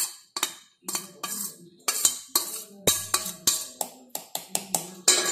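Steel spoon knocking and scraping grated coconut off a steel plate into a steel mixer-grinder jar: an irregular series of sharp metal clinks, about three a second, each ringing briefly.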